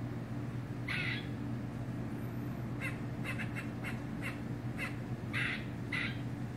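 Tree squirrel alarm-barking: a single bark, then a quick run of short chucks, then two more barks. It is a sustained alarm call given with no cat or dog in sight.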